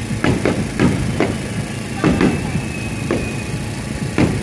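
Fireworks bursting: an irregular series of sharp bangs, about eight in four seconds, each with a short echoing tail.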